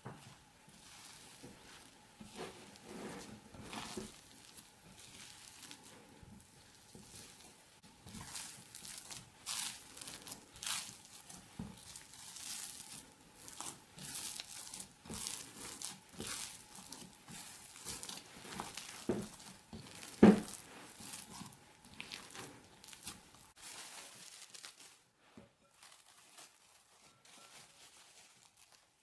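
Kitchen handling sounds from hands working at a counter: irregular rustling, crinkling and light taps, with one sharp knock about two-thirds of the way through.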